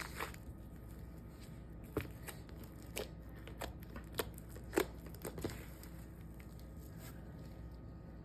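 Slime being mixed and squished by hand, giving a handful of short, sharp clicks and pops spread over several seconds, the loudest a little past the middle.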